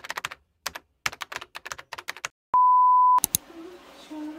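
Keyboard-typing sound effect: runs of quick clicks, then a steady single-pitch beep lasting well under a second, then a couple more clicks.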